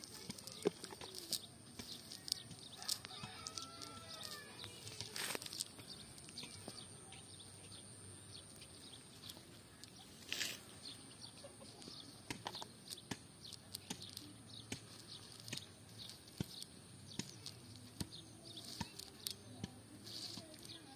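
Light crackling and rustling of a cast net and dry grass being handled, a scatter of short clicks throughout. A chicken calls once in the distance about three to four seconds in.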